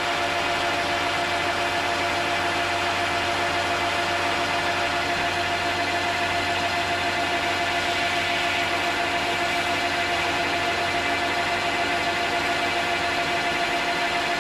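Metal lathe running steadily with a constant whine, its motor and gearing holding one speed throughout.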